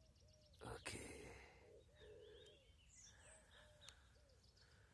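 Faint bird calls: short repeated arched notes and small high chirps, with a brief rush of noise just under a second in.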